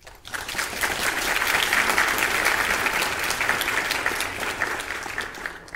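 Crowd applause: dense clapping that swells in within the first half second, holds steady, and tails off near the end.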